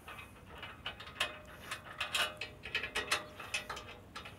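Allen (hex) key turning a bolt in an aluminium T-top frame clamp, snugging it a few turns: an irregular run of sharp metallic clicks as the key is worked and repositioned.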